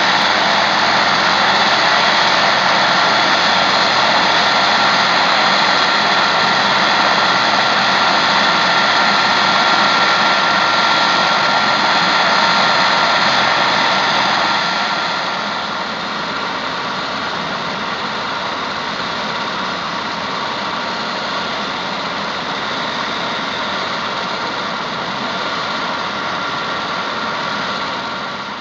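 MBB Bo-105 helicopter's turbine engines starting up: a steady, loud turbine whine with several held tones, dropping a little in level about halfway through as the main rotor begins to turn.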